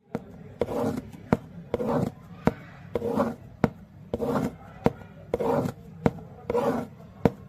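Heart sounds mimicked on a cardboard box: a sharp tap followed by a short scratchy swish, repeating regularly about once a second, imitating the pansystolic murmur of mitral regurgitation.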